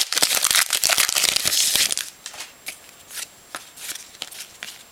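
Trading cards and their pack wrapper being handled: dense crinkling and rustling for about two seconds, then quieter scattered clicks and flicks of cards.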